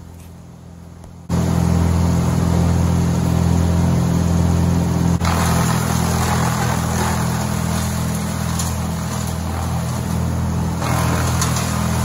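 An engine running steadily at a constant speed, starting abruptly about a second in.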